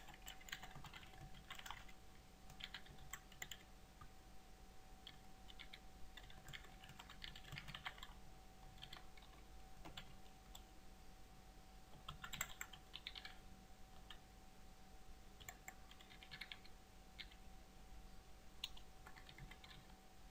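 Faint typing on a computer keyboard: quick runs of key clicks in uneven bursts with short pauses between them.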